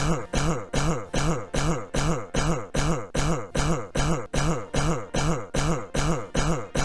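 A man's short cough edited into a fast, machine-even loop, repeating about three times a second.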